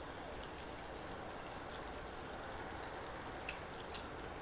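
Chicken heart skewers sizzling in a frying pan on a portable gas stove: a faint, steady crackle, with a couple of small pops near the end.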